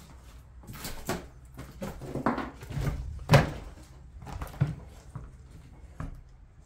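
Irregular knocks and thumps inside an old wooden house, such as footfalls and handling on boards, about six of them and unevenly spaced, the loudest about three seconds in.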